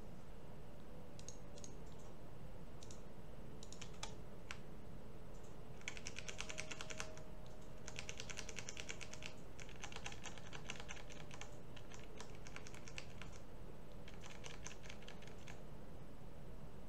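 Computer keyboard typing: a few single clicks, then from about six seconds in several short bursts of rapid keystrokes, over a steady low background hiss.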